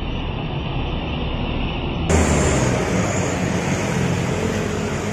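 Road traffic passing close: a light truck's engine and tyres going by, followed by motorcycles. About two seconds in the sound abruptly turns brighter and louder.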